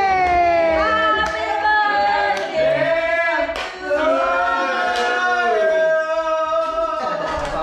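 Singing: long held notes sliding from one pitch to the next, with a few sharp taps landing roughly a second apart.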